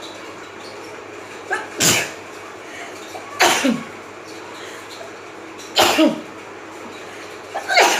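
A woman sneezing four times, about two seconds apart, each with a short catch of breath before the burst and a tail falling in pitch. The sneezes are set off by an irritant product applied in a sneezing challenge, which burns her nose.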